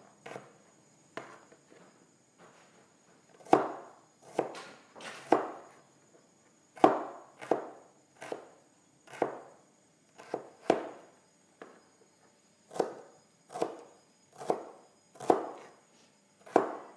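Kitchen knife chopping shallots on a cutting board: short, sharp knocks about one a second, a little sparser at the start.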